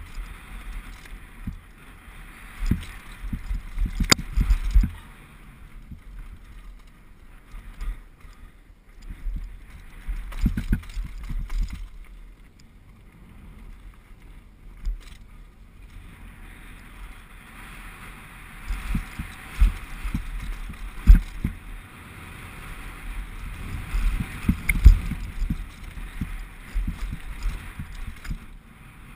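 2011 Specialized Big Hit downhill mountain bike rattling and thudding down a rocky gravel track: tyres crunching over stones and the bike clattering, with many sharp knocks as it hits rocks, heard through a GoPro. It eases off through the middle and the hardest knocks come in the second half.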